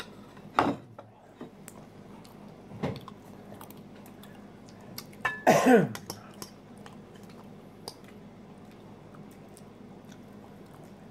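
A person eating salad with crunchy croutons: chewing and small clicks of a fork against a plastic bowl, with a short throat-clearing sound about five and a half seconds in.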